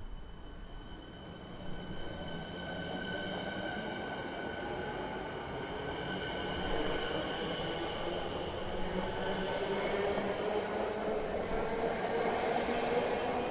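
Siemens electric suburban train accelerating along the platform, its traction motors giving a steady high whine that turns into a whine rising in pitch from about halfway, getting louder towards the end.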